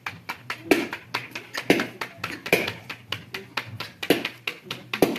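Rapid hard taps and clicks, several a second, with a louder knock about once a second.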